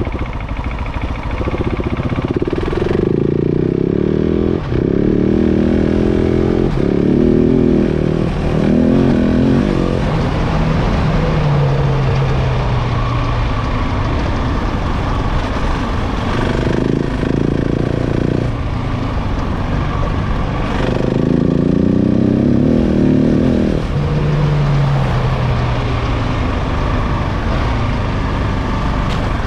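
KTM 690 Enduro's single-cylinder engine under way off-road, its pitch climbing and dropping again several times as the rider works the throttle and gears. The bike is being run in.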